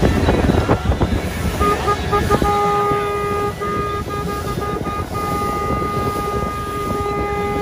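A boat horn honking: a few short toots about a second and a half in, then long, steady blasts with brief breaks between them. Under it runs the rush of wind and water past a moving motorboat.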